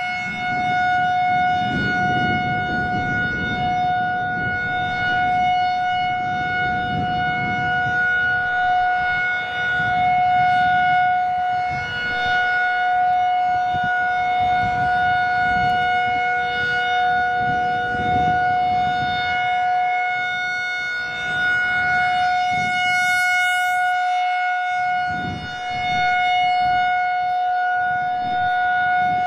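Federal Signal 2001-SRN outdoor warning siren sounding at full speed, holding one steady pitch whose loudness swells and dips slightly. Wind buffets the microphone, adding a rumble under the tone.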